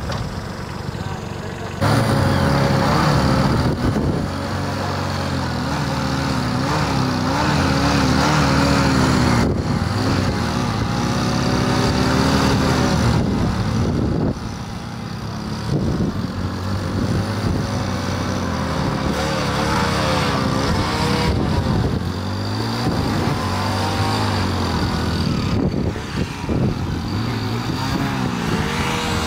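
Kubota compact diesel tractor and two small single-cylinder Hero Splendor Plus motorcycle engines running hard under load together, pulling against each other. The motorcycle revs waver up and down, and the engines get louder about two seconds in.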